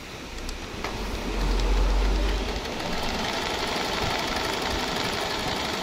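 Mechanical sewing machine starting up about a second in and then running steadily, stitching one side of a buttonhole with the buttonhole dial on step 3. A deep hum accompanies its first couple of seconds.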